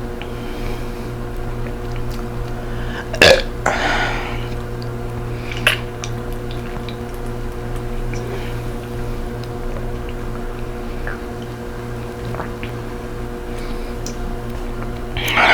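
A woman burps loudly once about three seconds in, after gulping down sparkling water. She then swallows in quiet gulps, and another burp starts right at the end.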